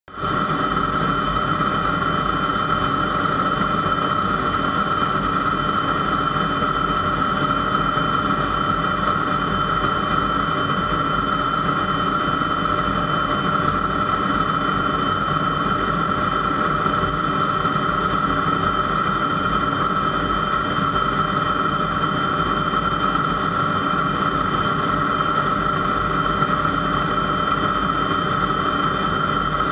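L-29 Delfin jet trainer's Motorlet M-701 turbojet running at a steady setting with a high whine while the aircraft stands on the runway.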